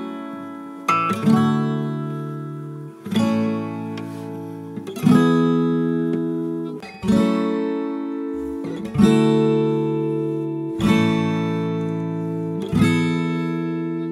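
Background music: acoustic guitar strumming slow chords, one about every two seconds, each left to ring and fade.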